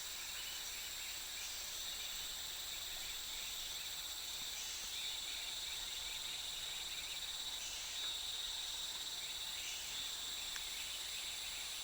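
Steady chorus of rainforest insects, several high pitched tones shrilling together without a break.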